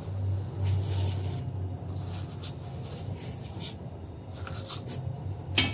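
Cricket chirping in a steady pulse, about four chirps a second, over a low hum. A few light clicks and a sharper knock near the end come from the wooden spoon against the metal pot.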